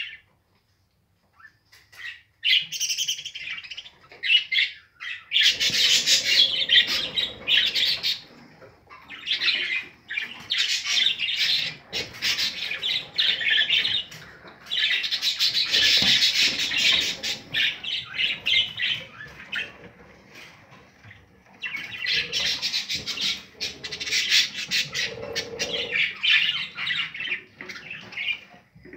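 Budgerigars squawking and chattering in long, rapid, scratchy stretches with short pauses, after a brief quiet at the start.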